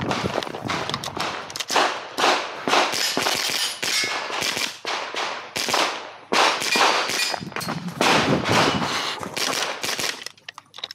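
.22LR rifle shots fired in quick succession, two or three a second, with sharp cracks and short echoes; the shooting stops near the end.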